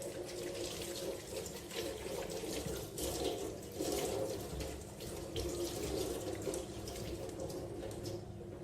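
Water running or pouring, a steady uneven splashing.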